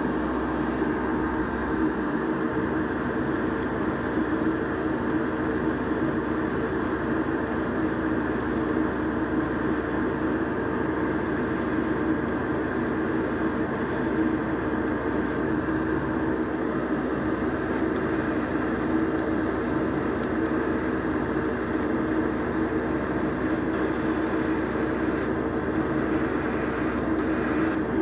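An airbrush spraying paint, its air hiss starting and stopping in short spells, over the steady drone of a motor that runs the whole time.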